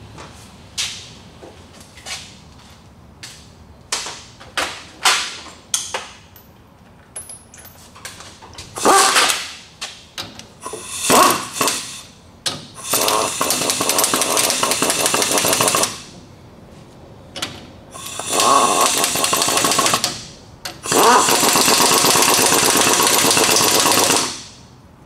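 Sharp metal clinks and knocks as the differential carrier and bearing caps are fitted into the axle housing, then an impact wrench hammering in bursts, the last three runs long, as the bearing cap bolts are run in to hold the carrier loosely before the bearing adjusters are set.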